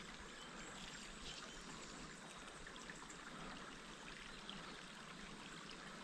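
Small creek trickling faintly and steadily.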